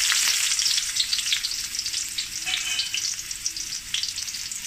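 Chopped red onion sizzling in hot coconut oil in a wok, a dense hiss with scattered spitting crackles, loudest at first and easing a little.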